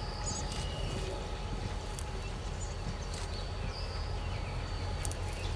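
Diesel locomotive's engine rumbling low and steady as it slowly approaches, with birds chirping and a thin steady high tone above it.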